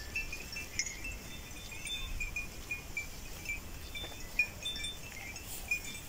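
Small bells on grazing cattle tinkling faintly and irregularly, a scatter of short high chime-like notes.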